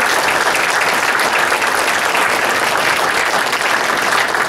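A roomful of people applauding, a dense, steady clapping that holds at full strength.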